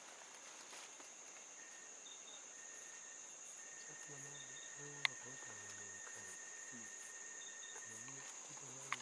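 Steady high-pitched drone of forest insects, with thinner steady tones and short chirps beneath it. A sharp click about five seconds in and another near the end stand out above it.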